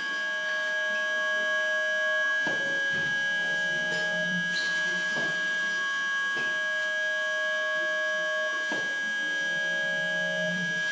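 Live-coded SuperCollider electronic music from synthesized sine-like tones: a high steady tone held throughout and a lower tone cutting in and out, crossed by a few short falling click-like sweeps a few seconds apart.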